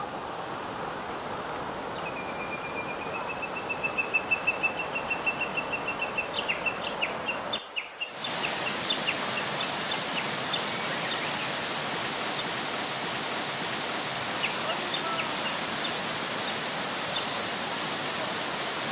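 Mountain stream water rushing steadily. A bird gives a rapid trill of evenly repeated high notes that rises slightly in pitch and grows louder, then breaks into scattered chirps. The sound cuts out for a moment about eight seconds in, and the water carries on a little louder.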